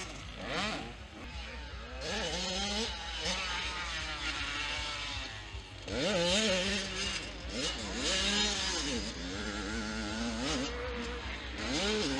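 Motocross dirt bike engines revving hard and dropping back again and again as riders accelerate, shift and ease off around the track. The sound swells several times as bikes pass.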